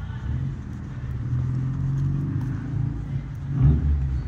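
Street ambience: a low rumble with dull thumps, the loudest about three and a half seconds in.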